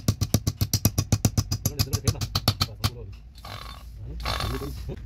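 Rapid, even clicking, about ten clicks a second, for the first three seconds. Then two short bursts of compressed-air hiss from an air blow gun.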